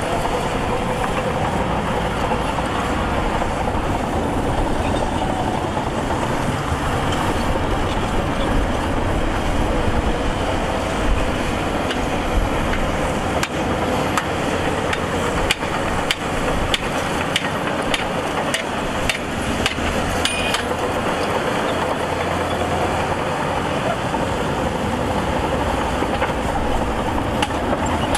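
Diesel engine of heavy earthmoving machinery running steadily, with scattered sharp metallic clanks and knocks through the middle stretch.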